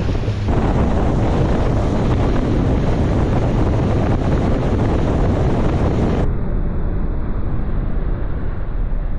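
Small open fishing boat under way at speed: wind buffeting the microphone and water rushing past the hull over the low steady hum of its motor. About six seconds in the hiss loses its highest part.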